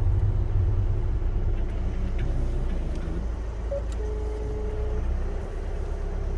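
Vehicle engine idling with a steady low rumble. A short beep comes a little before four seconds in, followed by a steady tone lasting about a second.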